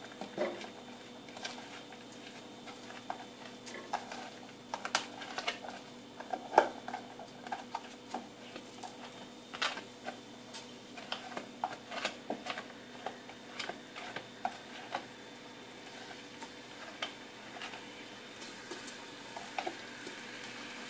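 Light, irregular ticks and taps of sliced onions being scraped by hand out of a plastic container and dropping into a steel pot, with the container now and then knocking the rim. A faint steady hum runs underneath.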